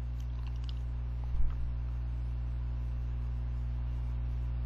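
Steady low electrical mains hum, with a single brief low thump about a second and a half in.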